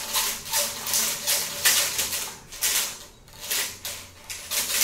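Quick rhythmic scraping strokes, about three a second, with a brief pause a little past the middle.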